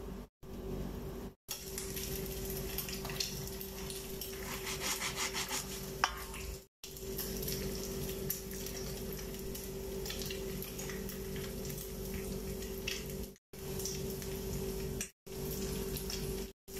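Crisp toasted tortilla crackling as it is cut with a spatula and pulled apart, over a steady hum. The sound drops out briefly several times at edits.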